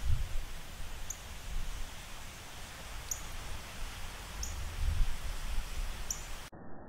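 Wind rumbling on the microphone in gusts, with short, high chirps from a bird about every one to two seconds. About six and a half seconds in, the sound cuts abruptly to a dull, muffled hiss.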